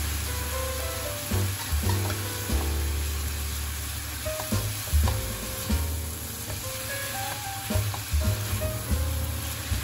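Pork, zucchini and beech mushrooms sizzling in a wok as they are stir-fried with a spatula. From about halfway through, the spatula scrapes and knocks against the pan several times.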